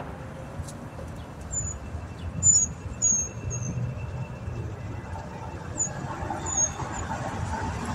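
Steady low rumble of street traffic, with several short, high-pitched chirps over it, the loudest about two and a half and three seconds in.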